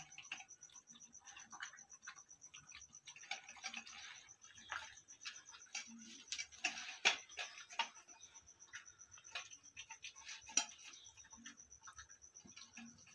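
A dog eating from a stainless steel bowl: irregular soft smacking and chewing sounds, with its muzzle now and then knocking against the metal bowl, the loudest knocks about seven and ten and a half seconds in.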